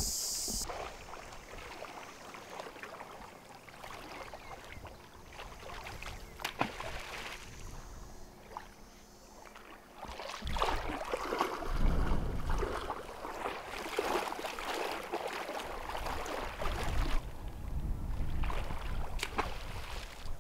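Wind buffeting the microphone and sloshing shallow water on a beach, with a few small knocks. It grows louder and rumbles from about halfway through.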